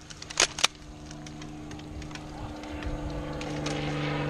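Two sharp airsoft gun shots about half a second in, then a steady engine hum that grows gradually louder.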